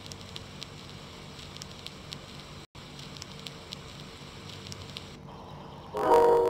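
Faint crackling hiss with scattered soft ticks that cuts out for an instant partway through, then background music with held notes comes in near the end.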